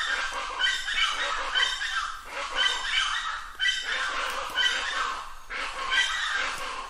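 Plain chachalacas calling: harsh, grating calls repeated about twice a second, overlapping one another without a break.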